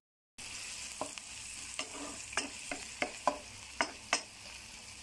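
Sliced onions frying in oil in a pan, a steady sizzle, with a spatula scraping and clicking against the pan about a dozen times as they are stirred. It begins after a short moment of silence.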